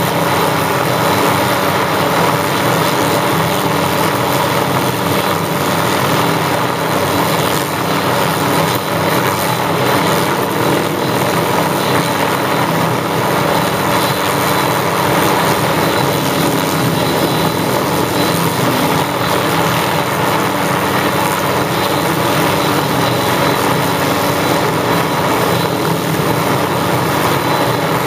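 Steady, loud drone of a Hughes 500 helicopter's engine and rotor as it pulls the hard line, running without letup.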